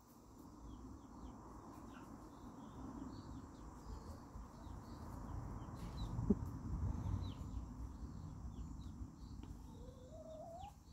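Chickens in a run: short, high, falling cheeps every second or so over a steady low rumble, with one rising call from a hen near the end.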